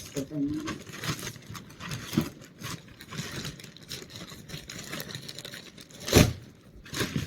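Packaging being opened by hand: irregular rustling, crinkling and scraping, with a single loud knock about six seconds in.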